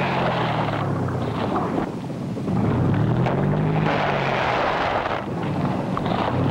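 Cartoon sound effect of a truck engine labouring and revving in surges, over a steady rushing noise, as a tow truck's crane hauls a wrecked aircraft out of a tree; it grows louder about two and a half seconds in.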